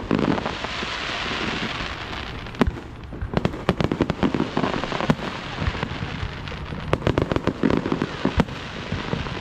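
Fireworks going off: a hissing spray for the first couple of seconds, then a rapid run of sharp pops and bangs that becomes a dense crackle from about three seconds in.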